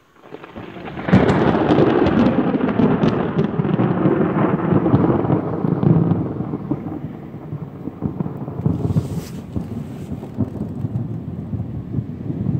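Rolling thunder after a nearby lightning flash. It builds within about a second with sharp crackles, then rumbles on and slowly dies away over about ten seconds.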